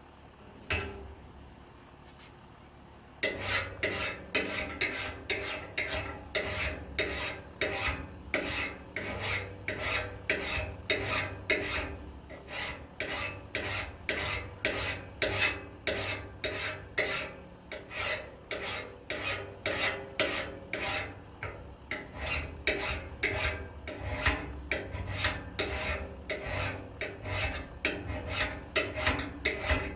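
Hand-held steel file being drawn across a steel tool blade to sharpen it, in repeated even rasping strokes at about two a second. These begin about three seconds in, after a short knock just under a second in.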